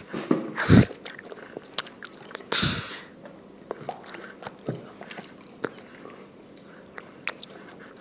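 A small child chewing a mandarin segment close to the microphone, with wet mouth clicks and smacks. Two louder bumps come within the first three seconds.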